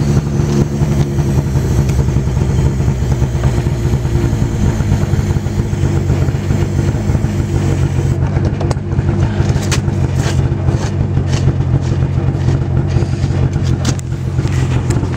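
An engine idling steadily throughout. Over the first half an aerosol can hisses as propellant is sprayed into the potato gun's chamber, followed by a few light clicks and knocks as the end cap is handled and fitted.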